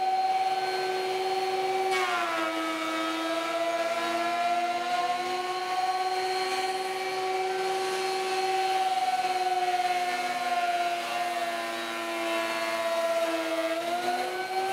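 Benchtop thickness planer running with a steady high whine. About two seconds in, a click marks the board on its sled entering the cutterhead, and the motor's pitch drops under the load of a light planing pass. Near the end the pitch climbs back up as the board clears the cutter.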